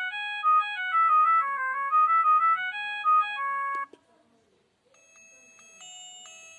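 myPhone Rumba mobile phone's built-in ringtones: a melody of quick stepped notes plays and cuts off suddenly about four seconds in, and after a second of near silence the next, quieter ringtone melody begins.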